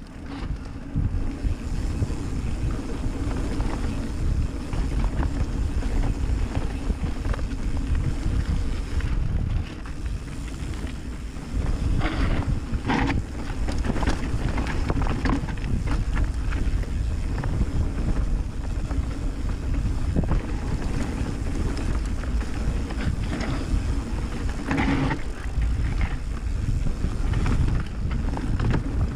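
Mountain bike ridden along a rough trail: wind buffeting the microphone over a steady rumble of tyres, with the bike rattling over bumps and a few sharper knocks about twelve seconds in and again near twenty-five seconds.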